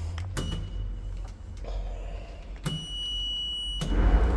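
Otis Europa lift car sounding a click with a short high beep, then a high beep lasting about a second, about two and a half seconds in; a low rumble rises near the end.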